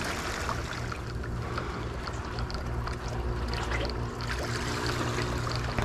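A steady low motor hum, like a boat engine running, with water and wind noise and scattered small ticks over it.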